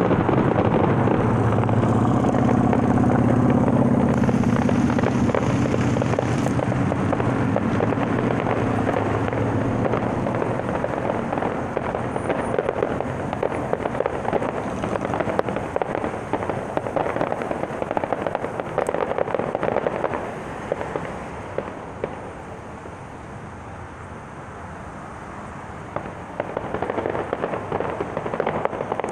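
Distant aerial fireworks display: a dense, continuous run of bangs and crackles from bursting shells. It thins out about two-thirds of the way through and picks up again near the end. A vehicle's low engine hum runs under the first ten seconds.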